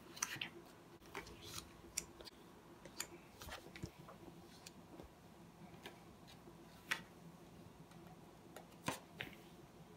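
Stiff cardstock journaling cards handled by hand on a tabletop: scattered soft clicks, taps and slides as cards are set down, shifted and picked up, with two sharper clicks about seven and nine seconds in.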